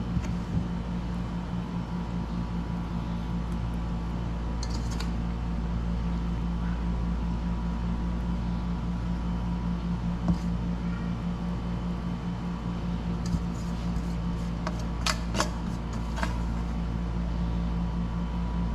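A steady low machine hum with a few light clicks and clatters, most of them bunched in the last few seconds.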